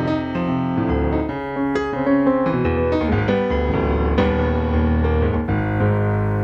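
Digital stage piano played with a piano sound in an improvisation: a run of changing chords over deep bass notes, settling on one held chord about five and a half seconds in.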